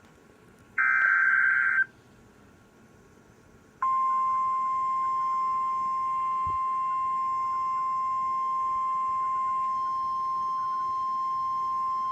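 Emergency alert data header: a one-second burst of warbling digital data tones about a second in, then a pause of about two seconds, then a single steady high beep, the weather radio alert tone, holding for about nine seconds to announce a severe thunderstorm warning.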